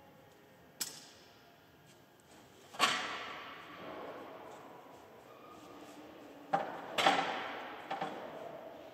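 Clanks and knocks of the corn head's road transport protector being unstrapped and lifted off: one knock about a second in, a loud clank near three seconds, and three more near the end, each ringing on with echo in a large hall.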